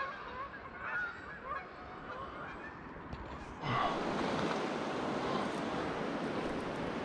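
Canada geese honking as a migrating flock passes over, the calls fading out within the first two seconds. About three and a half seconds in, a steady, louder rush of flowing river water takes over.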